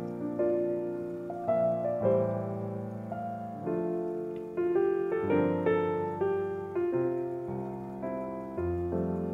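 Background piano music: notes and chords struck about once a second and left to die away.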